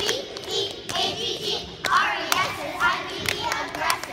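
A group of young girls clapping their hands in uneven claps, with children's voices chanting and talking over them.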